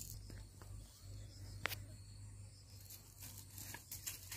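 Faint rustling and small clicks over a low steady hum, with one sharper click about one and a half seconds in.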